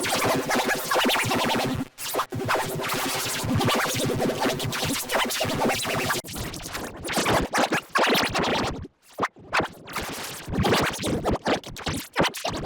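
Electronic music with DJ-style record scratching, chopped and stuttering, with brief drop-outs about two seconds in and around nine seconds.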